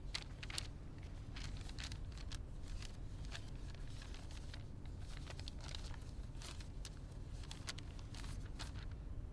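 Sheets of paper rustling and crackling as pages are turned and leafed through, in quick irregular rustles over a low steady hum.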